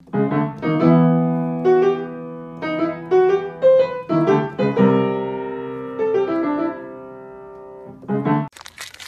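Piano music: single notes and chords struck one after another and left to ring out, stopping abruptly about half a second before the end, after which a brief noise starts.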